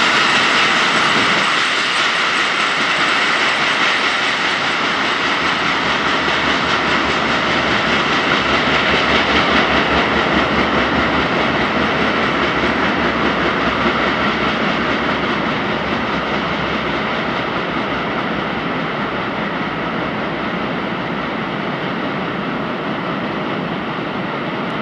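Tank wagons of a freight train rolling away along the track: steady wheel-on-rail noise that slowly fades as the end of the train recedes.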